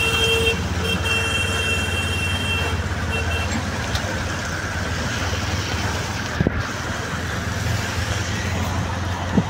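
Auto-rickshaw engine running steadily amid the hiss of rain and traffic on a wet road. A vehicle horn sounds over the first three and a half seconds, in a long blast with a few short breaks.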